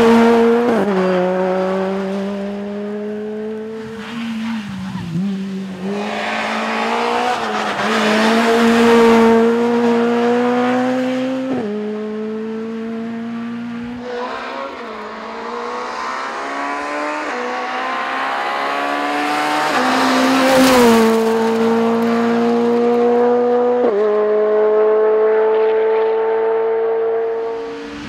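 Rally car engines revving hard on a stage, the pitch climbing and then stepping abruptly at gear changes several times, the sound swelling and fading as the cars come and go.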